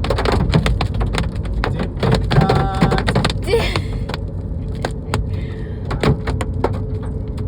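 Hailstones pelting a moving car's body in many irregular sharp knocks, over the steady rumble of the car on the road.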